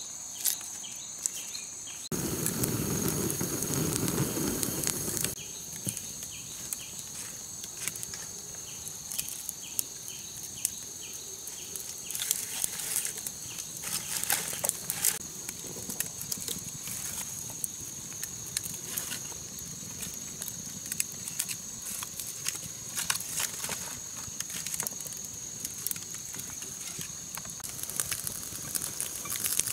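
Wood fire crackling, with scattered sharp pops from the burning sticks under a frying pan. A louder rushing noise lasts about three seconds near the start, and a steady high thin tone runs throughout.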